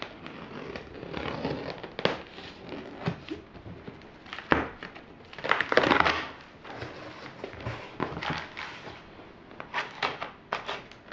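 A knife cutting through packing tape along a cardboard box's seam, with crackling and scraping of tape and cardboard. A longer, louder scrape comes about halfway through, and a quick run of sharp clicks near the end.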